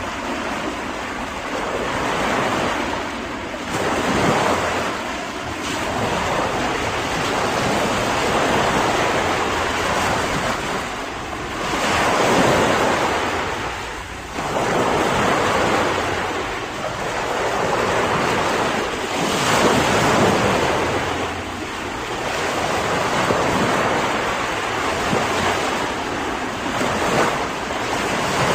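Sea waves breaking and washing in: a continuous rushing surf that swells into a louder surge roughly every seven to eight seconds and ebbs between them.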